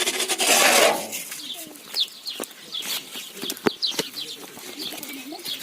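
Birds chirping in short repeated calls. A brief rushing, rustling noise comes about half a second in and is the loudest thing, with a few sharp clicks later.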